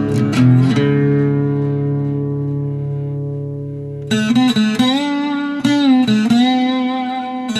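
Plucked-string instrumental music. A few notes come in the first second, then a held chord slowly fades, and a new phrase with wavering, sliding notes starts about four seconds in.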